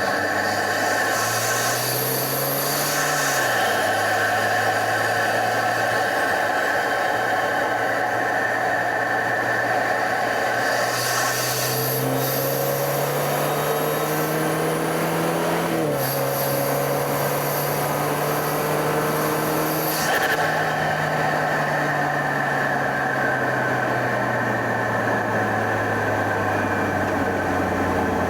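BMW F30 328i's turbocharged N20 four-cylinder engine, fitted with an open aftermarket intake, pulling the car along. The pitch rises and falls, climbs slowly, drops suddenly about halfway through, then eases down steadily, with bursts of rushing hiss while the revs are up.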